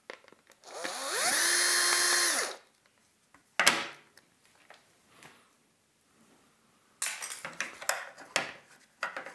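Bosch cordless drill-driver spinning up, running steadily for about a second and a half and winding down as it drives a screw in a plastic sewing-machine foot-controller housing. A sharp knock follows. Near the end come small plastic clicks and rattles as the housing is handled and the circuit board is worked out.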